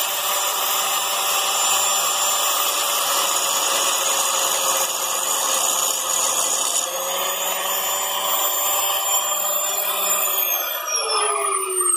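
Electric angle grinder running at speed and grinding into the steel inner race of a wheel bearing stuck on the hub. About ten seconds in it is switched off and its whine falls in pitch as the disc spins down.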